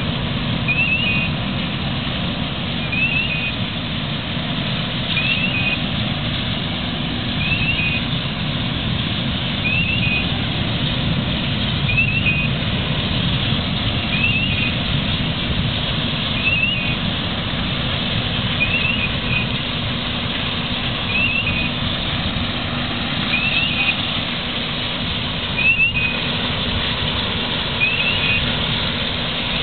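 Steady rushing roar of propane burning as a jet of flame from a small LP tank, mixed with the hiss of firefighters' hose water-fog streams, over a steady engine hum. A short high chirp repeats about every two seconds.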